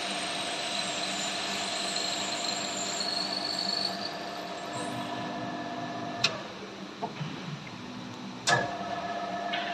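Drilling spindle motor of a CNC plasma cutting machine running with a steady whine while drilling steel plate. About six seconds in there is a click and the whine winds down in a falling tone. A louder sharp click follows about two seconds later, and the whine starts again.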